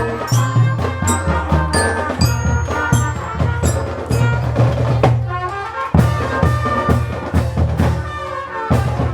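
Drum corps playing: brass carrying a melody over steady bass-drum and percussion beats.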